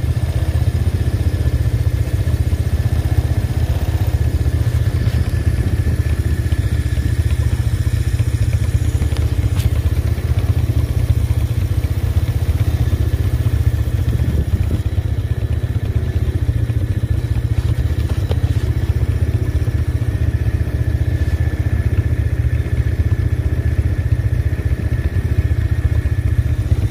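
All-terrain vehicle (quad) engine idling steadily, a constant low rumble.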